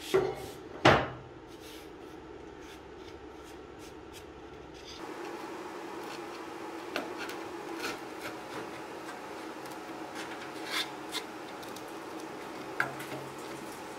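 Two sharp knocks right at the start. From about five seconds in, a small metal scraper rubs and scrapes dried adhesive out of the mirror frame's inner recess, with scattered small clicks.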